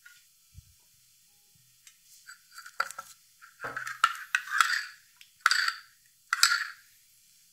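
A metal spoon scraping and clinking in a ceramic bowl of marinade, in three or four short strokes as the sauce is stirred and scooped. A soft knock comes about three and a half seconds in.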